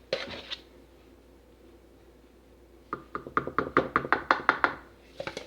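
Rapid light knocking of a utensil against a container, about seven knocks a second for roughly two seconds, in the second half; a brief scrape near the start.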